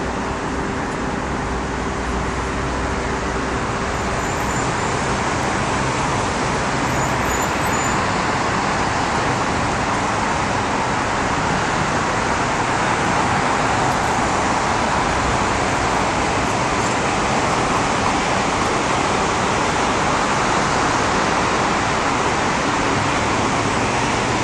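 Steady city traffic noise: an even rushing hiss with no single vehicle standing out, growing slightly louder over the stretch.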